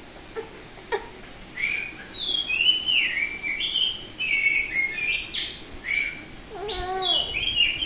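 Oriental magpie-robin (kacer) singing: a run of clear, whistled notes sliding up and down, with a couple of short clicks in the first second and a lower, rougher falling note about seven seconds in.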